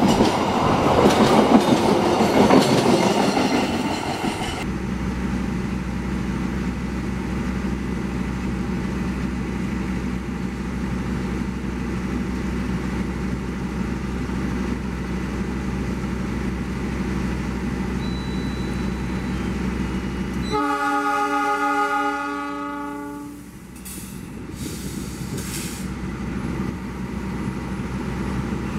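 Train rumbling past for the first few seconds, then a sudden change to a locomotive's engine running steadily. About twenty seconds in, one train horn blast lasting about three seconds.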